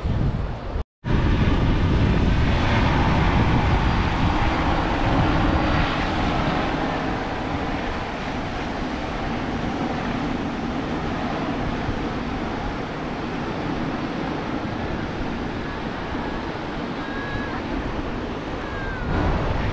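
Steady wind rumbling on the microphone, mixed with waves breaking on a shingle shore. The sound cuts out completely for a moment about a second in.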